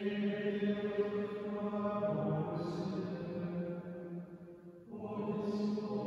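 Monks' men's voices chanting a psalm of Vespers in unison, held mostly on one steady reciting note. A short breath pause comes about five seconds in, and then the next verse begins.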